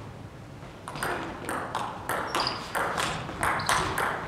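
Table tennis rally: the plastic ball clicks off bats and table about three times a second, starting with the serve about a second in, each hit ringing briefly in the sports hall.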